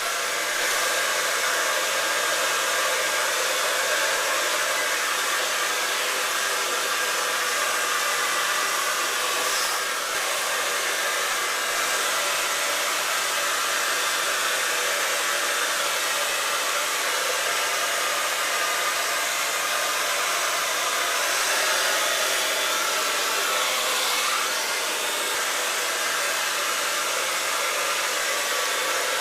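Hand-held hair blow dryer running steadily, an even rush of air with a faint hum beneath it, drying hair.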